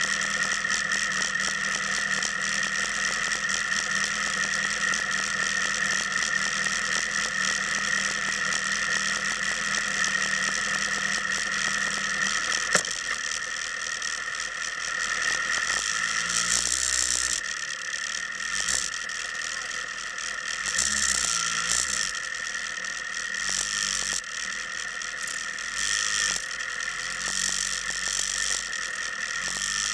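Motorcycle engine idling steadily with a mechanical rattle. About 13 seconds in there is a sharp click, the steady low hum drops away, and uneven low thumps follow under the continuing rattle.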